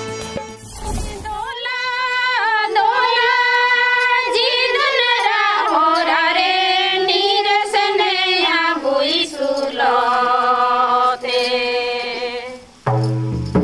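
A woman's voice singing a slow, unaccompanied melody of long held notes that waver and slide in pitch. Just before the end a band with a heavy drum beat comes in.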